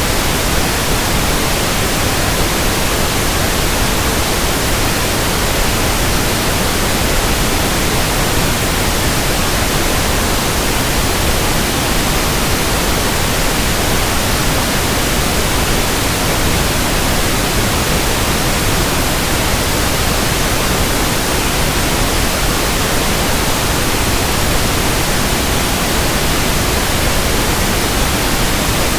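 Pink noise test signal: a steady, even hiss across the whole range, as used for measuring frequency response.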